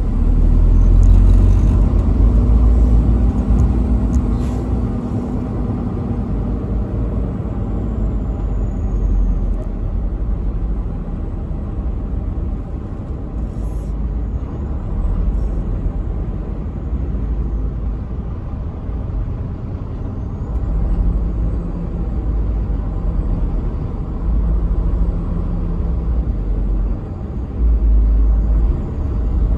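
Semi-truck's diesel engine running with a steady low rumble, heard inside the cab while creeping along in slow traffic.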